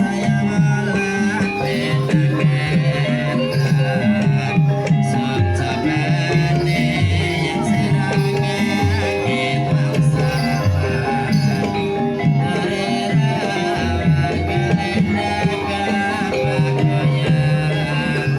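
Banyumasan gamelan music for an ebeg horse-trance dance: sustained ringing metal tones over steady drumming, with singing.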